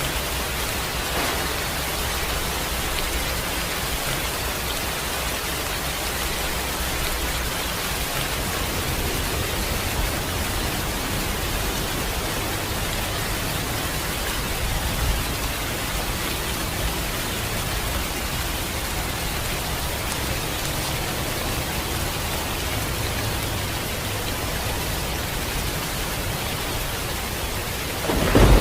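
Steady rain falling, an even hiss with no change. In the last moment a loud clap of thunder breaks in.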